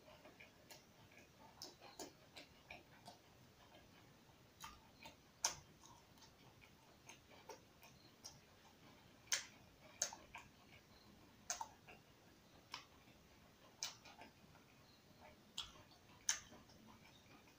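Faint, sharp mouth clicks and lip smacks of a person chewing food, coming irregularly about once every second.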